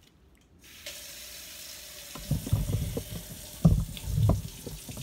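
A kitchen faucet is turned on about a second in, and water runs steadily into a stainless steel sink. From about two seconds in, irregular knocks and thuds of things being handled in the sink sound over the running water.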